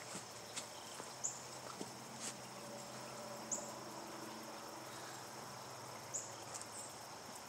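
Steady high-pitched insect chorus, with a few short high chirps and scattered faint clicks.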